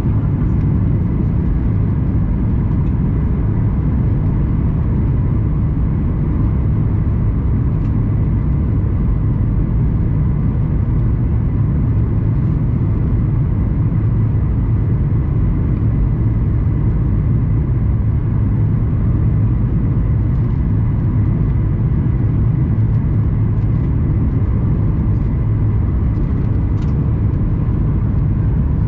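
Steady cabin noise of a Boeing 737-800 on final approach: the deep, even rumble of its CFM56 engines and rushing air, with a faint steady whine above it.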